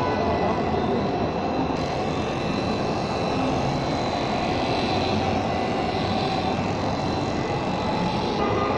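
RUPES LHR Mark II random orbital polisher running steadily, its yellow foam pad working over the paint of a car hood.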